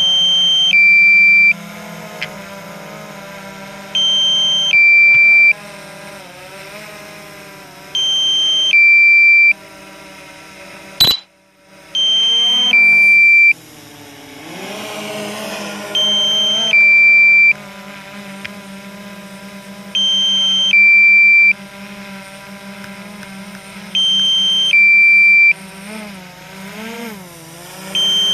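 DJI flight app's low-battery alarm for a Mavic Pro Platinum sounding: a two-tone beep, high then lower, repeated every four seconds, warning that the drone's battery is low. Under it the drone's propellers hum steadily, wavering in pitch as it hovers, with one sharp click about eleven seconds in.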